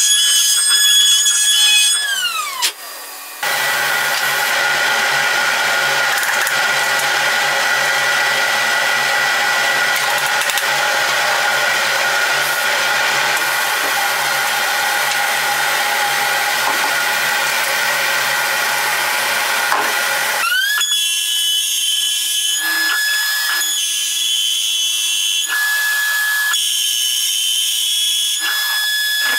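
CNC router spindle whining at a high, steady pitch as its bit carves an old oak beam. About two seconds in, the whine falls in pitch as the spindle spins down. Then comes a longer, rougher stretch of cutting with a low hum under it, and near the end the steady whine returns, breaking off and starting again several times.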